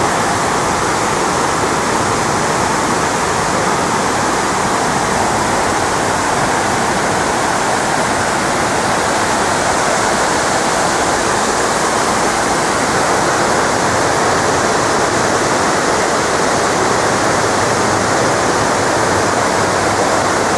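The 9/11 Memorial's South Pool waterfall: water falling steadily down the pool's walls into the basin, a loud even rushing.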